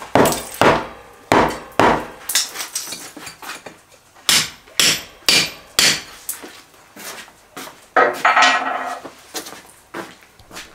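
Hand hammer striking a steel chisel against concrete blocks and mortar, breaking out a block wall by hand: a string of sharp, irregular blows, roughly two a second, with a longer, rougher sound about eight seconds in.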